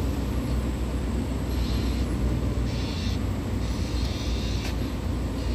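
Car driving along a road, heard from inside the cabin: a steady low rumble of engine and tyres, with a few short spells of higher hiss.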